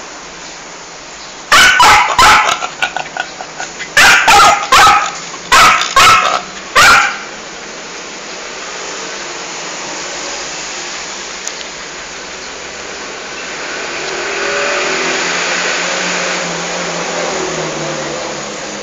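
Small dog barking loudly: about ten sharp barks in four quick groups over some five seconds, then it stops.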